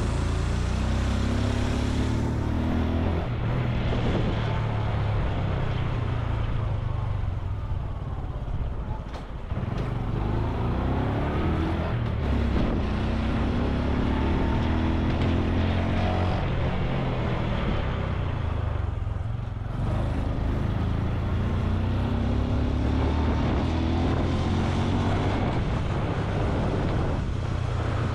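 Honda Super Cub C125's single-cylinder four-stroke engine and exhaust under way, its pitch climbing again and again as it pulls through the gears and easing off twice.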